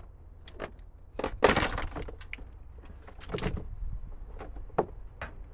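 A part on a junkyard car being forced and broken off by hand to clear the way to a motor mount bolt: a series of cracks and snaps, the loudest and longest about one and a half seconds in, with a few more sharp cracks later.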